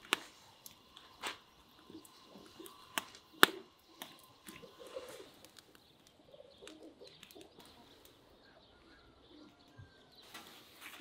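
A few sharp clicks and knocks in the first four seconds, the loudest about three and a half seconds in, from handling food and cookware at a charcoal grill. Faint bird chirps follow.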